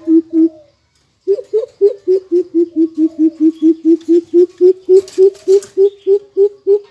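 Greater coucal giving its deep, even hooting call in a long series of about four hoots a second. The series breaks off briefly soon after the start, then resumes and runs on. A short rustle comes about five seconds in.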